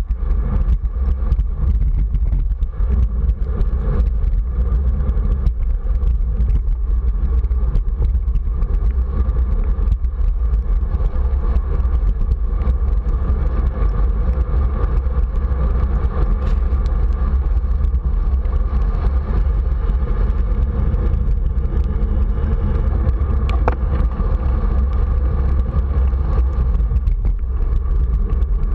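Steady wind rumble over the microphone of a camera on a moving bicycle, mixed with tyre hiss on wet pavement.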